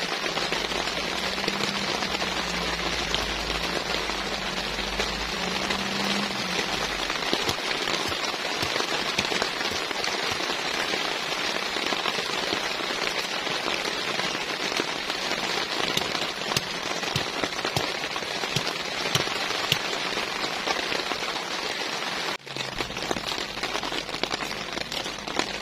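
Steady rain falling, a dense hiss with many small individual drop hits on a near surface, briefly cutting out about 22 seconds in.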